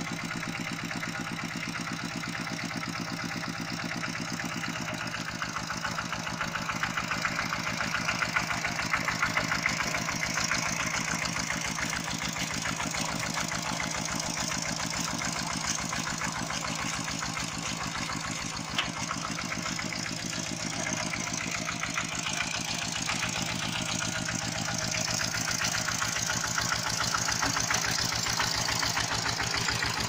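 Two-wheel walking tractor's single-cylinder diesel engine running steadily under ploughing load, a fast even chugging, with water and mud splashing around the disc plough. One sharp clack about two-thirds of the way through.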